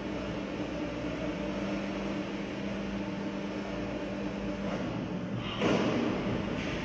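Hydraulic two-post car lift lowering a car: a steady hum, then a short, louder rush of noise about five and a half seconds in.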